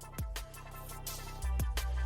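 Background electronic music with a beat of deep drum hits that drop in pitch. A heavy bass comes in about one and a half seconds in.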